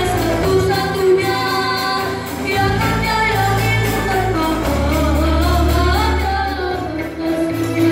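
Rebana ensemble music: children singing a melody through microphones over frame drums and amplified accompaniment, with steady bass notes under the voices.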